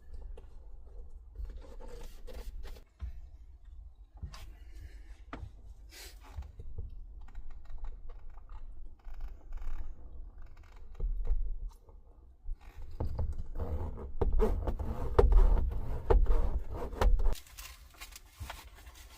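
Scraping, scratching and knocking handling noises from fitting self-adhesive sound deadening sheets to a van's roof. They are scattered at first, then busiest and loudest from about thirteen to seventeen seconds in.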